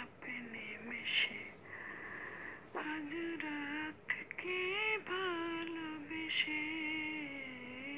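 A woman singing an Islamic gojol, a Bengali devotional song, solo voice in long held notes with short breaks between phrases.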